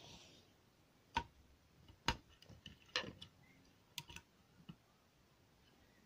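Handling noise: a few light, sharp clicks and knocks, roughly one a second, with faint hiss between.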